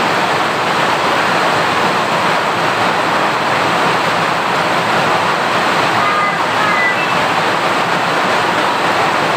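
Steady, loud rushing noise with no break, and a few brief faint high tones about six to seven seconds in.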